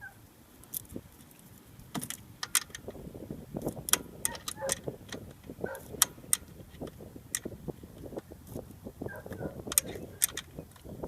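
Wrench clinking and clicking against an alternator mounting bolt as it is tightened, a run of irregular sharp metallic ticks.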